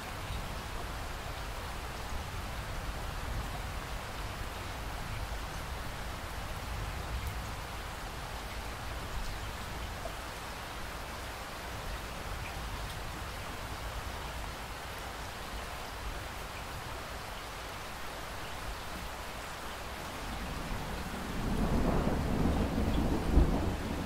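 Steady rain with a low rumble underneath. Near the end a louder roll of thunder builds.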